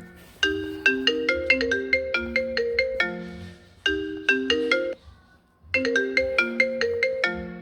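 Marimba ringtone playing a quick melody of struck, ringing notes over lower bass notes. It comes in short phrases with brief breaks between them, one a near-silent gap of about half a second past the middle.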